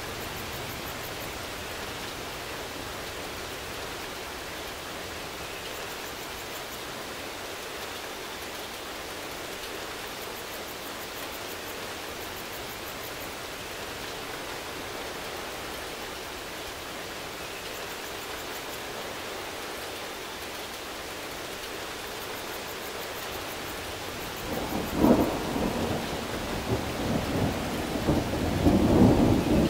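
Steady rain falling, an even hiss. About twenty-five seconds in, thunder starts rumbling, louder than the rain, in rolling peaks.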